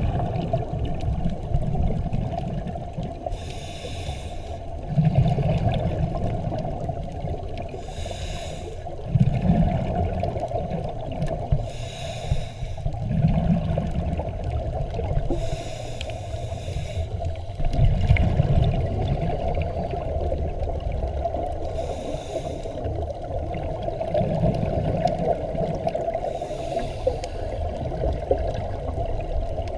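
Scuba diver breathing through a regulator underwater: a brief hiss and rush of exhaled bubbles about every four seconds, over a steady low rumble of water.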